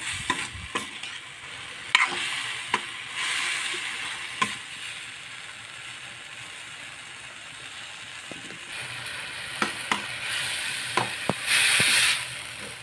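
Bean sprouts and fried tofu sizzling in a hot wok while a metal spatula stirs them, with scattered sharp clicks and scrapes of the spatula against the pan. A louder spell of stirring and sizzling comes near the end.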